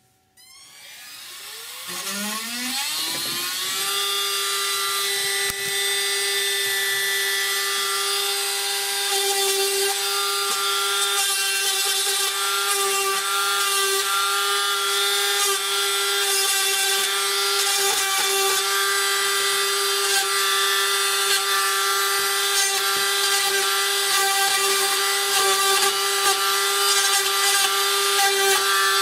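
Dremel rotary tool spinning up over the first few seconds to a steady high whine, then grinding with a fine pointed bit into a cast resin model base to cut out small air bubbles.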